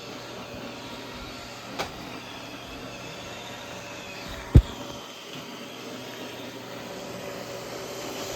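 A Roomba robot vacuum running steadily with a motor hum, with a small knock about two seconds in and a sharp, louder knock about halfway through.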